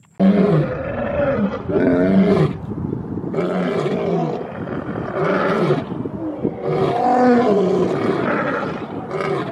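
Two male lions roaring together: a run of repeated roars with short gaps between them.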